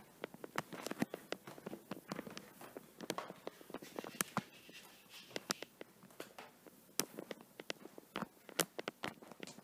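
Quiet footsteps of people creeping along a carpeted hallway, with many irregular sharp clicks, taps and rustles.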